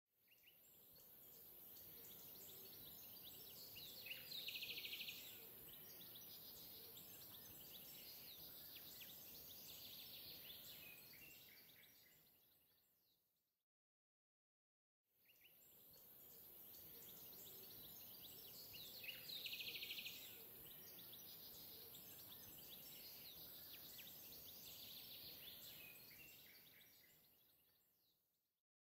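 Faint outdoor ambience with bird chirps, a roughly 13-second loop played twice, fading in and out each time.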